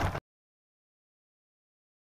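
A brief burst of loud rushing wind noise on an RC plane's onboard camera microphone, cut off suddenly a fraction of a second in, followed by dead silence.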